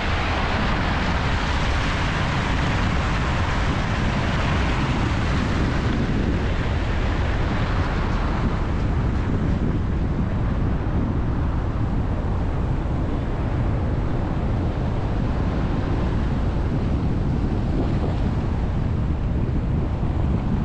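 Wind buffeting a microphone mounted on the outside of a moving car, with steady tyre hiss from a wet, slushy road. The hiss eases after about eight seconds.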